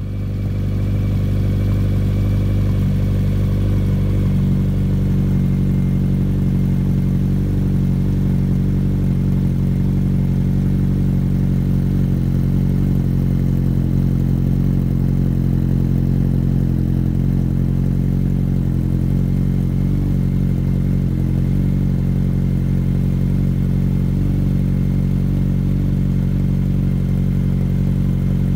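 Honda CB1100's air-cooled inline-four engine idling steadily through an Arrow Race-Tech exhaust, an even exhaust note with no revs.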